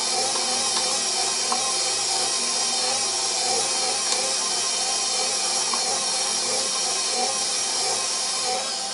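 KitchenAid stand mixer running steadily while stirring bread dough, its motor whirring evenly with a few faint ticks. It eases off slightly near the end.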